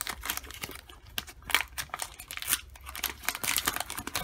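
Foil trading-card pack wrapper being crinkled and torn open by hand, with irregular crackling throughout.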